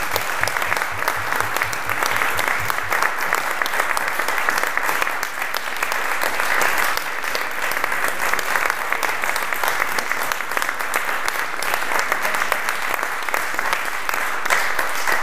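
A room of people applauding, a steady, even clapping that keeps up without a break.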